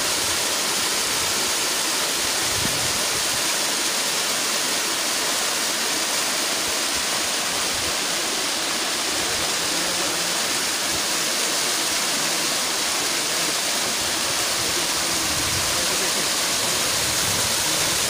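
A small waterfall splashing down stepped rock ledges into a rocky stream, making a steady, even rush of falling water.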